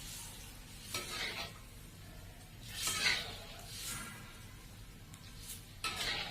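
Spatula stirring okra in a cooking pan: a few separate scraping strokes, the loudest about three seconds in, over a low steady hiss.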